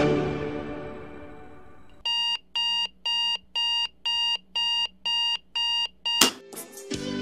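Alarm clock beeping in a steady rhythm, about ten short high beeps at roughly two a second, after music fades out. The beeping stops with a sharp click about six seconds in, and music comes back in near the end.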